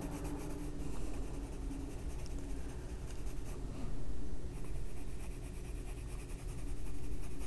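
Faber-Castell Albrecht Dürer watercolour pencil shading on the paper of a colouring book, a soft continuous scratching of the lead in back-and-forth strokes, a little louder about four seconds in and again near the end.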